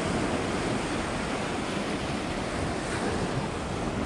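Surf washing and breaking against a rock shelf in a steady, even rush, with wind buffeting the microphone.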